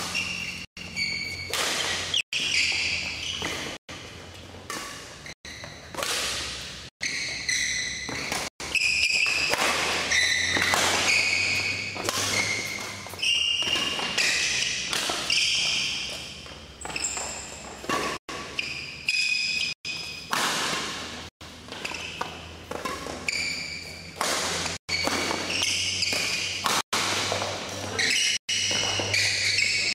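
Badminton rally: rackets striking the shuttlecock again and again, with shoes squeaking on the synthetic court mat. The sound drops out for an instant every second or two.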